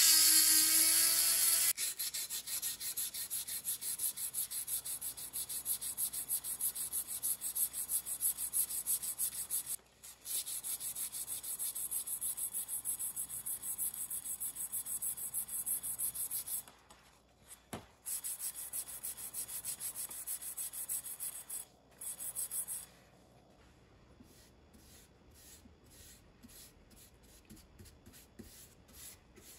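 A small rotary tool whirs on the steel hammer head and stops about two seconds in. It is followed by rapid back-and-forth scrubbing of the burned, charred wooden hammer handle, about four strokes a second, with a few short pauses. Near the end come soft, light brushing strokes as oil is brushed onto the handle.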